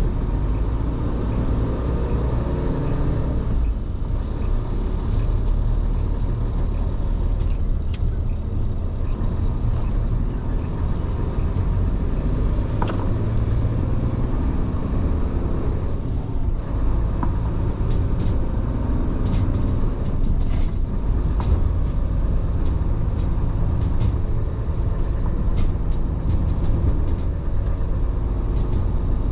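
Large truck's engine and road noise while driving: a steady low drone, with a few faint clicks here and there.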